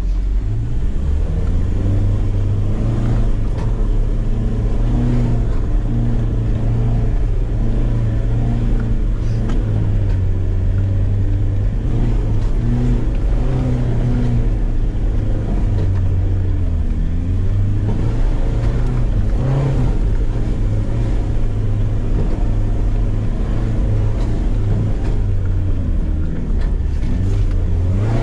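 Land Rover Defender 90's engine running under load as the four-wheel drive climbs a steep dirt track, its note rising and falling now and then with the throttle, heard from inside the cabin.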